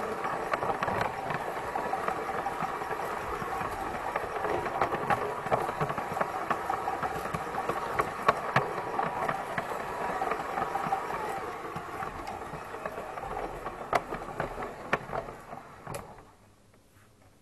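Piko G-scale model locomotive (BR 80) running on brass track: a steady electric-motor and gear hum with clicking of wheels over the rail joints. The motor's pitch falls and the sound fades as the train slows, stopping about three-quarters of the way through.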